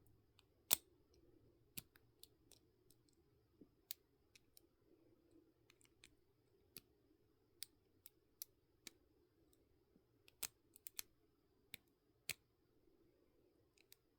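Faint, irregular metallic clicks of a lock pick working the pins of a pin-tumbler lock held under a tension wrench, about fifteen over the stretch, the sharpest about a second in and a bunch more later on.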